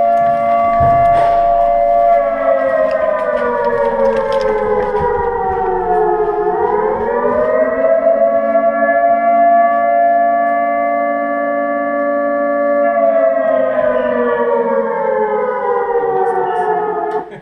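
Civil-defence air-raid siren wailing, a chord of several tones together. The pitch sinks slowly, swoops back up, holds steady for several seconds, then sinks again before cutting off suddenly.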